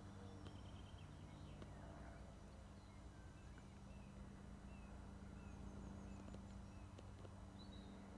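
Faint outdoor ambience: small birds chirping now and then, with a soft low call near the start, over a low steady hum.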